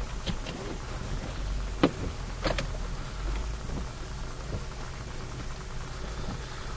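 Steady rushing noise over a low rumble on a police dash-cam recording, broken by a few sharp clicks and crackles, the loudest about two and two and a half seconds in.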